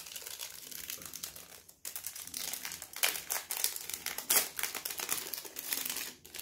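Gift-wrapping paper crinkling and rustling in irregular crackles as a wrapped tube is unwrapped by hand, with a brief pause a little under two seconds in.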